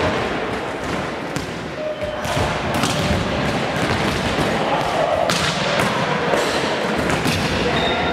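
Volleyballs being struck and bouncing on a sports hall floor: several sharp thuds at irregular intervals.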